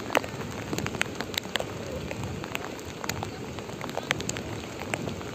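Heavy rain falling, with irregular sharp ticks of drops landing close by, over the steady rush of floodwater flowing across a submerged road causeway.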